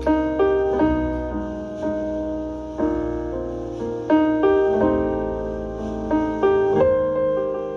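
Background piano music: chords and melody notes struck in small groups over sustained bass notes, each note ringing out and fading.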